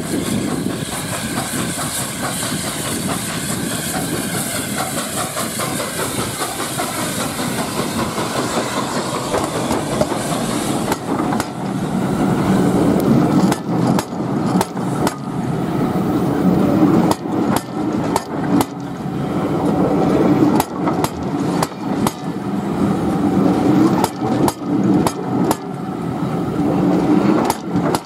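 A steam train passing close by: a loud rushing hiss as the steam locomotive goes by, cutting off about eleven seconds in. Then its coaches roll past with a steady low rumble, their wheels clicking over the rail joints in quick pairs, clickety-clack.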